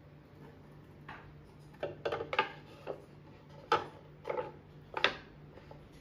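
Wooden chopping boards being set upright on a countertop and knocked against each other, giving a string of about eight irregular wooden knocks and clacks, the loudest two near the middle and near the end.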